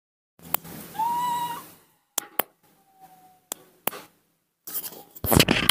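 Newborn baby monkey giving a short, whistle-like coo that rises slightly and then holds about a second in, followed by a fainter, slightly falling coo. A few sharp clicks fall between them, and a louder rustling noise comes near the end.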